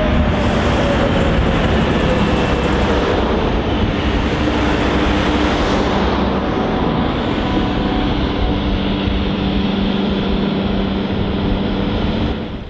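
Endeavour-class diesel railcar passing close by and running away down the line, its engine and wheels loud on the rails, with a tone falling in pitch as it goes past. The noise drops off suddenly near the end.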